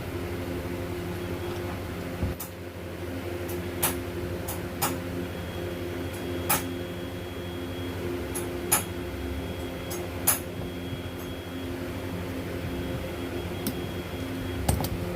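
A steady mechanical hum with several sharp clicks and knocks scattered through it, about seven in all.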